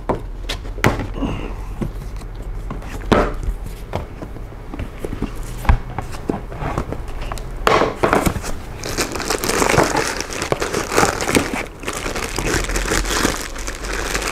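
A cardboard product box is handled and opened with a few knocks and scrapes. From about eight seconds in, a plastic bag crinkles steadily as the unit wrapped in it is pulled out.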